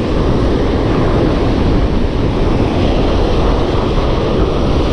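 Wind buffeting the microphone over the steady wash of breaking surf, a dense rumble heaviest in the low range with no let-up.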